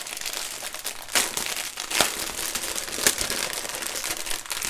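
Clear plastic bag of diamond-painting drills crinkling as it is handled and unwrapped. It crackles continuously, with sharper crackles about a second in, at two seconds and around three seconds.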